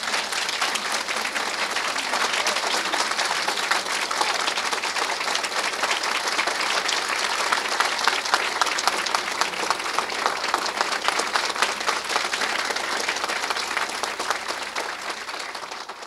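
Large audience applauding steadily after a speech, easing slightly near the end.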